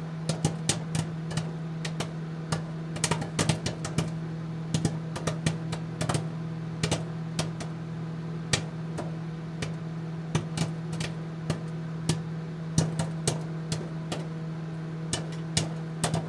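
A crackling static sound effect: a steady low electrical hum with irregular sharp clicks and crackles scattered throughout.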